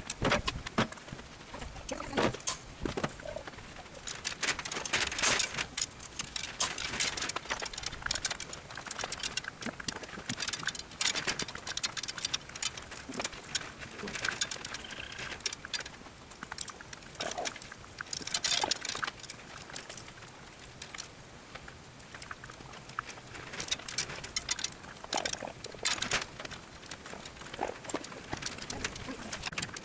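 Chicken wire being handled and fastened along a fence, giving irregular rustles and clicks, with chickens making low clucking sounds.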